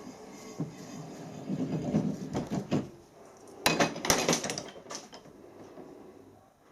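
Steel workpieces and tools being handled on a workbench: scraping and rubbing, then two sharp metallic clinks about half a second apart near the middle.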